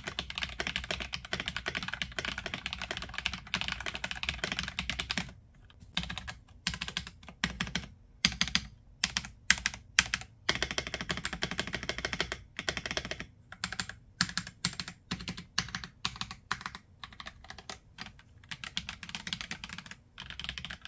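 Redragon K631 Castor Pro mechanical keyboard with its custom yellow linear switches being typed on: fast, continuous typing for about the first five seconds, then slower, separate key presses and short runs of keys.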